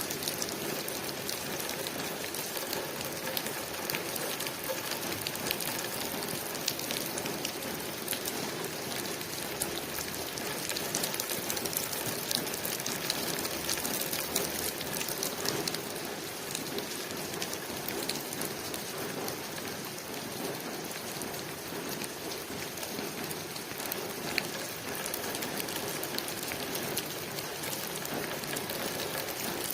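Steady rain pattering on a window, an even hiss of rain with many small individual drop ticks against the glass.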